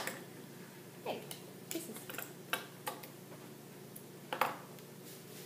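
Irregular sharp plastic clicks and snaps as a fidget spinner is pried out of its clear plastic blister pack, about seven in all. The loudest come right at the start and about four and a half seconds in.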